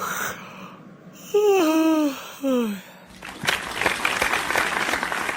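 Animation-software character voice effects overlapping: a cartoon-style vocal call falling in pitch, heard twice, then a burst of clapping applause for about two seconds that cuts off suddenly.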